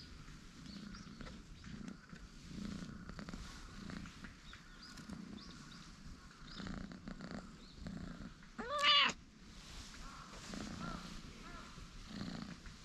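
Ginger tabby cat purring steadily in a slow rhythm while being stroked. One short, loud meow comes about two-thirds of the way through.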